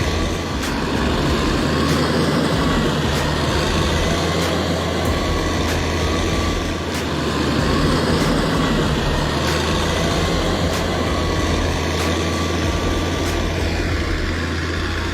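A heavy truck engine running steadily with a low hum, with faint regular ticks about every second and a bit.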